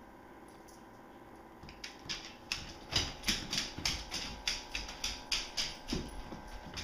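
A dog's claws clicking on a hardwood floor as it moves about, a steady run of sharp ticks about three a second that starts about two seconds in.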